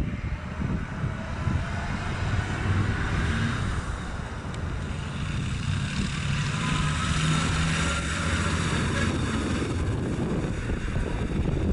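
The V8 engine of a 1957 Chevrolet Nomad running with a steady low drone as the car drives past.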